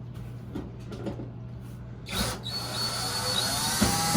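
A power drill-driver starts about two seconds in and runs steadily with a whine that rises a little in pitch, backing out the screws that hold the dryer's air chute panel. A few light clicks and knocks come before it.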